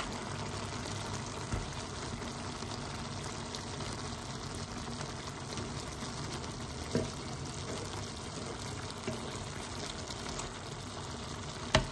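Chicken and vegetable stew simmering in a pan, a steady bubbling hiss, while a spatula stirs it, with a few soft knocks against the pan and two sharper ones near the end.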